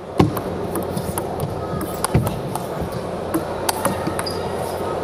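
Table tennis rally: sharp, irregular clicks of the ball striking the rackets and bouncing on the table, the loudest about a quarter second in, over a low arena hum.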